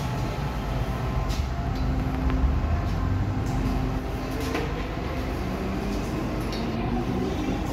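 MTR M-Train electric multiple unit heard from inside the car as it pulls away and accelerates: low rumble of the wheels on the rails under a faint traction-motor whine that slowly rises in pitch, with a few sharp clicks and rattles.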